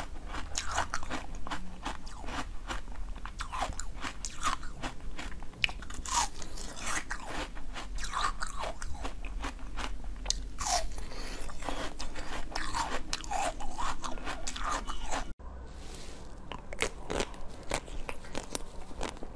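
Close-up crunching and chewing of frozen jelly, many sharp crisp bites one after another. About fifteen seconds in it switches to quieter bites and chewing of a chocolate-coated frozen bar.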